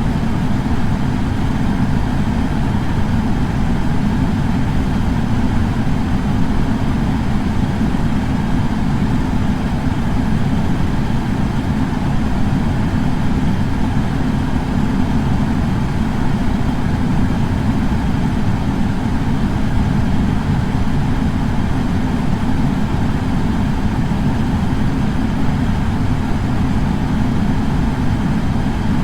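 Air purifier fan running steadily: a constant deep rush of air, strongest in the bass, with no change in speed.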